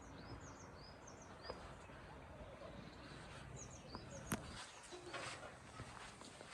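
Small birds chirping: short high chirps in quick little groups over faint outdoor background noise. A single sharp click comes about four seconds in, followed by light rustling.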